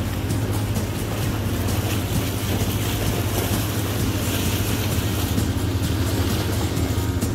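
Boat engine running steadily under way, a constant low drone mixed with wind and water noise.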